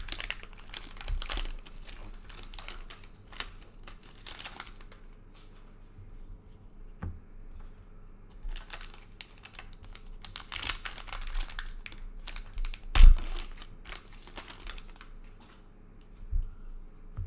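Trading-card pack wrappers being torn open and crinkled, with cards rustling, in irregular clusters of crackling. A single sharp knock about 13 seconds in is the loudest sound, with lighter knocks around it.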